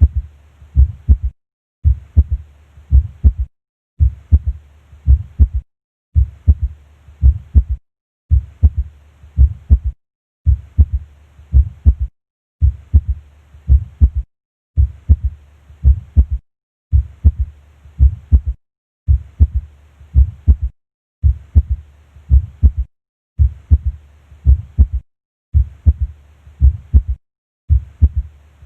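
Heart sounds heard at the apex with a physiological third heart sound (S3), a faint extra low thud following the second sound in each beat. The short recording is looped: a group of low thuds repeats about every two seconds, with a brief silence between groups.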